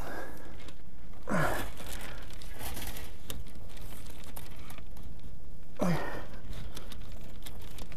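Black solar panel cables rustling and scraping as a thick bundle is pushed through a roof flashing into a pipe, with two short effortful sighs or grunts from the worker, about a second in and just before six seconds.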